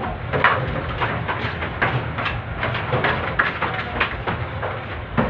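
Hands working a stiff dough in a large steel trough: irregular knocks and scrapes of hands and dough against the metal, about two or three a second, over a steady low hum.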